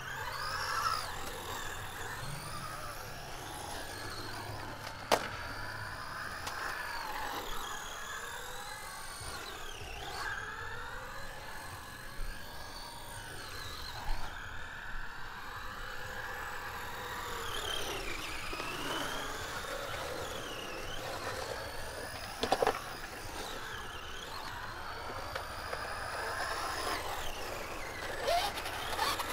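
Electric motors of hobby RC cars whining as they drive. Several overlapping whines rise and fall in pitch with throttle, and a few sharp knocks break in, one about five seconds in and another past twenty-two seconds.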